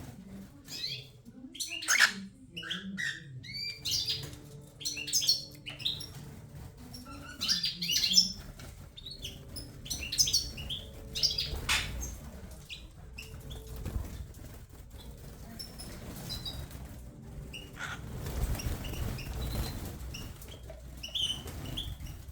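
Cockatiel chirping in short, curved whistled calls that come in scattered flurries, with some low rustling between them.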